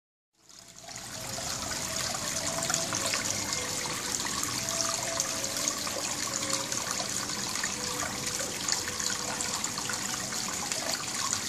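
Water of an artificial waterfall pouring and splashing steadily, fading in over the first second.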